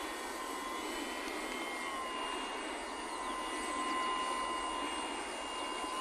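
Electric motor and propeller of a Seagull E-Pioneer radio-controlled model plane in flight: a steady, thin whine over an even hiss, getting slightly louder around four seconds in as the plane comes closer.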